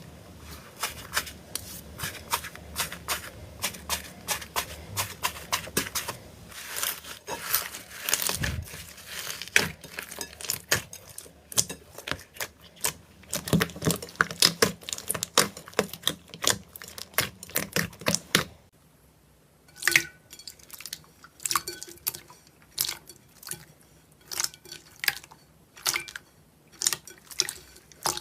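Slime being squished and worked by hand, a quick run of sticky pops and crackles. About two-thirds of the way in, the background hiss drops away and the pops come more slowly, a few a second.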